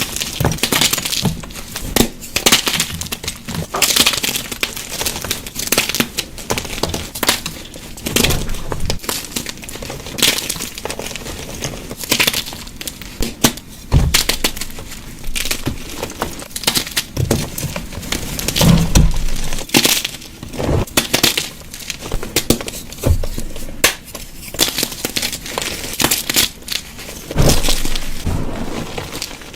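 Blocks of dyed gym chalk being crushed, a dense, irregular run of crisp crunches and crumbling crackles.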